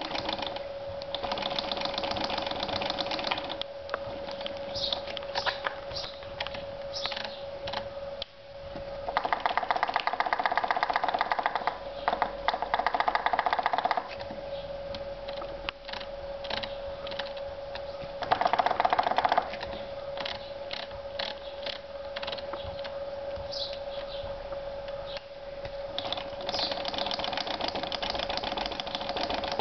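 RockShox Pike suspension fork being pumped repeatedly, knocking each time it rebounds to the top of its shortened travel, with runs of rapid knocks about a third of the way in and again past the middle. The owner takes the hard top-out knock for a fault in the fork. A steady hum runs underneath.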